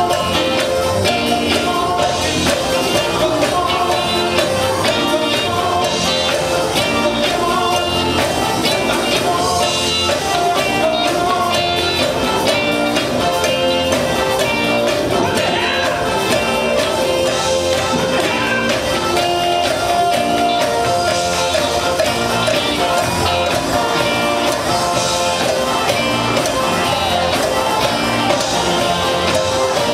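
Live gospel band playing an upbeat number at a steady level: electric guitars, bass, keyboard and drum kit, with a singer's voice over them.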